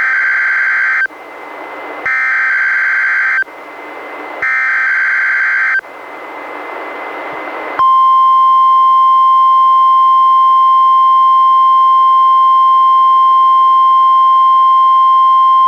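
NOAA Weather Radio Required Weekly Test: three roughly one-second bursts of SAME digital header tones, about a second apart, with receiver hiss between them. About eight seconds in, the steady 1050 Hz warning alarm tone begins and holds.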